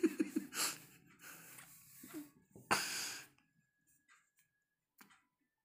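Breathy hissing and short raspy noises from a green parakeet, with one louder, longer hiss about three seconds in.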